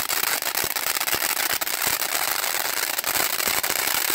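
Firework fountains spraying sparks: a steady hiss with a dense crackle of small pops.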